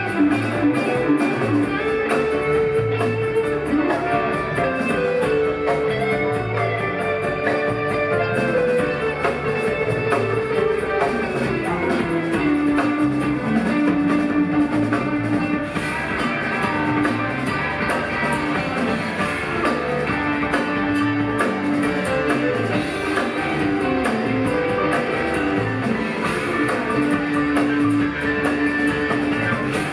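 Live rock band playing an instrumental jam: an electric guitar plays sustained, bending lead lines over bass, keyboards and drums.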